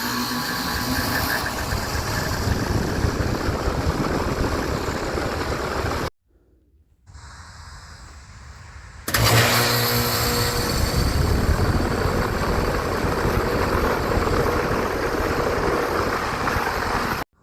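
HVAC units running, their fans and compressors making a steady whooshing drone, in three clips joined by abrupt cuts. The middle clip is much quieter, and the last adds a low steady hum.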